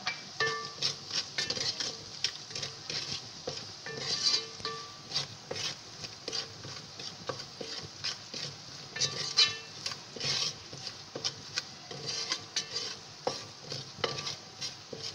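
Wooden spatula stirring and scraping in a metal pot, knocking against its sides again and again, over the steady sizzle of spices and onions frying in oil as the masala is fried down.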